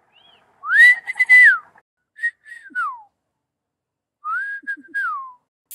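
A person whistling three short phrases, each rising, holding a steady note and sliding down, in imitation of the song of the tui, a New Zealand bird.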